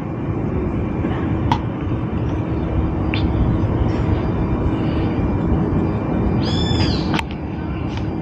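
Wind buffeting the microphone, with a faint steady low hum and a few sharp clicks. A bird gives a short chirping call about six and a half seconds in.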